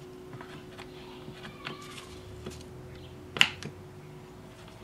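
Small scattered clicks and taps of metal as a brake master cylinder is handled and probed with a hand tool, with one sharp click about three and a half seconds in, over a faint steady hum.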